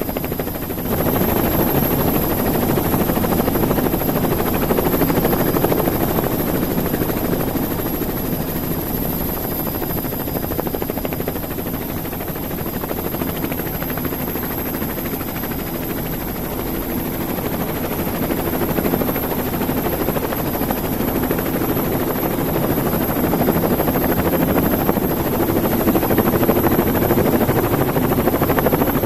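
Radio-controlled model helicopter's rotor and motor running steadily in flight, heard from the onboard camera, with a thin, very high steady whine over a dense drone. It gets louder about a second in, eases a little midway and builds again near the end.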